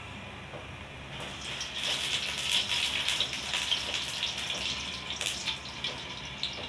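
Canola oil poured in a stream from a plastic bottle into a wok on a gas burner. The pour starts about a second in and runs on as a splashing, crackling patter in the pan.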